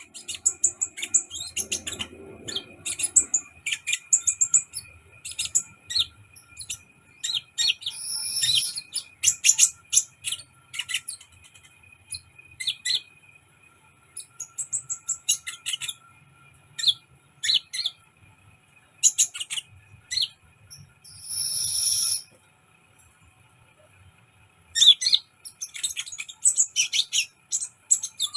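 A kolibri, the sunbird kept by Indonesian bird hobbyists, chirping: quick runs of short, sharp, very high notes, with a longer harsh rasping note about eight seconds in and again about twenty-one seconds in.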